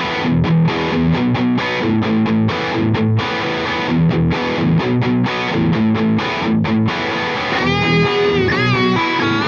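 Distorted electric guitar playing a rhythmic, choppy riff. About eight seconds in, a second guitar joins with lead notes bent up and down in pitch.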